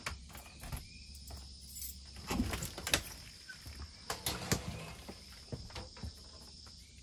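Key working a camper's door lock and latch, with a series of clicks and knocks as the door is unlocked and pulled open, the loudest about three seconds in. A steady high insect drone runs behind it.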